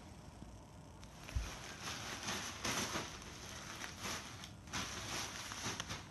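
Fabric rustling and handling noise as a garment is smoothed flat and a cloth tape measure is laid across it, in irregular swishes with a soft low thump about a second and a half in.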